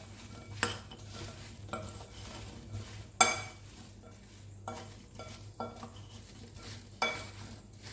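A spoon stirring crispy fried potato cubes with spice powder in a bowl, clinking and scraping against it in a string of irregular clicks, the loudest about three seconds in.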